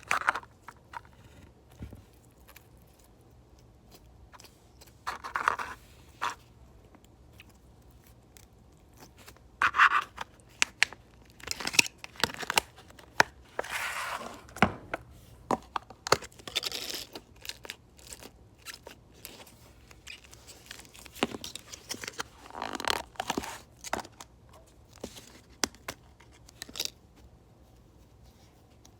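Slime being squeezed and poked by hand, giving irregular crackling, crunching bursts and sharp little clicks and pops with quiet gaps between them.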